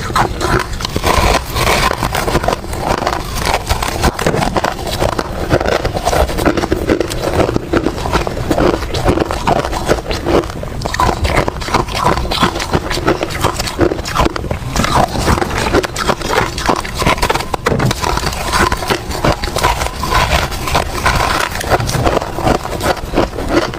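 Close-up crunching and chewing of frozen ice, a dense run of crackling bites with no pause.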